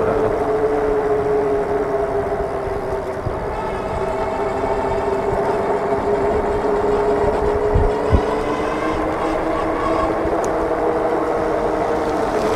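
Super73 RX fat-tire electric bike riding along pavement: a steady droning hum that sags a little in pitch and then rises again as the speed changes, over a low rumble. Two short thumps come about eight seconds in as the wheels hit bumps in the road.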